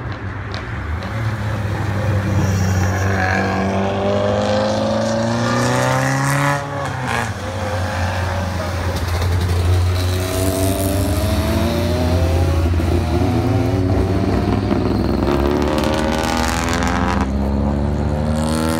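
Several cars' engines, rally cars among them, driving one after another down a hairpin descent. Engine pitch rises and falls with the throttle, and one car passes close about six and a half seconds in.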